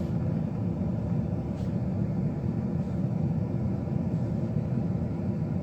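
Steady low rumble of background noise, with one faint click about one and a half seconds in.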